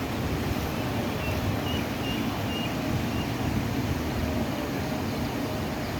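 Steady rush of river floodwater pouring over a road bridge.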